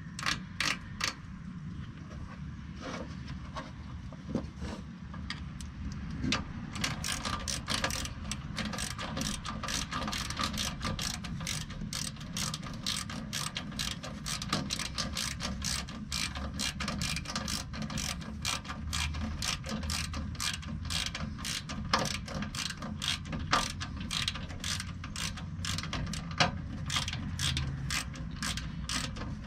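Hand ratchet clicking in quick, even strokes, about three clicks a second, as an intercooler mounting bolt is run down. A few scattered clicks come first, and the steady clicking starts a few seconds in.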